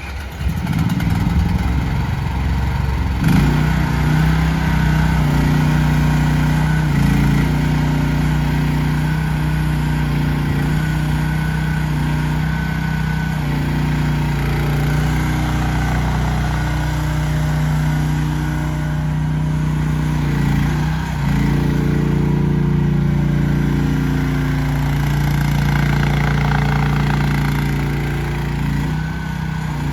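AGT Industrial QH12 mini excavator's small engine running steadily, its pitch shifting a few times in the second half.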